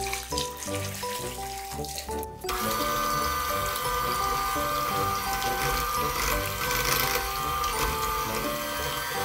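Liquid poured into a glass bowl of cream cheese, then about two and a half seconds in an electric hand mixer switches on and runs steadily, its beaters whipping the cream cheese mixture. Background music plays throughout.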